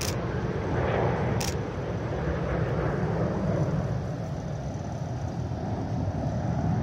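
Distant jet aircraft of the Frecce Tricolori aerobatic team (Aermacchi MB-339 trainers) giving a steady, low rumble overhead. Two short sharp clicks come near the start and about a second and a half later.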